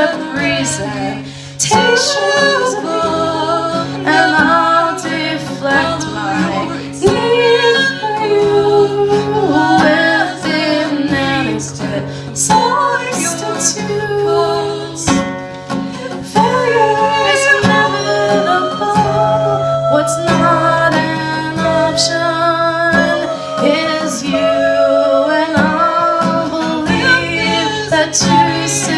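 A woman singing with guitar accompaniment, live.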